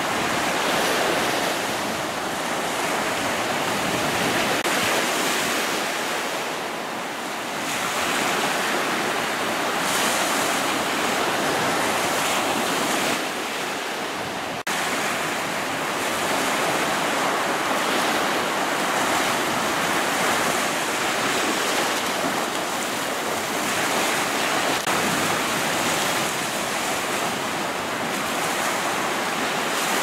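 Small spilling breakers on a shelly, sandy Gulf of Mexico beach: a continuous wash of surf that swells and eases as each wave breaks.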